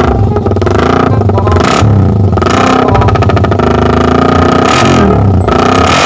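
Suzuki Raider 150's single-cylinder four-stroke engine, fitted with a 28 mm UMA carburettor, running through an AUN aftermarket exhaust and revved in several blips, the pitch rising and falling back.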